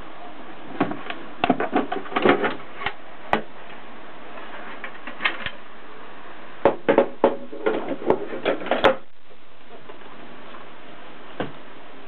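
Clicks and knocks from the case of a Gossen Tippa portable typewriter as it is opened and its lid lifted off, in two short flurries about five seconds apart, over a steady hiss.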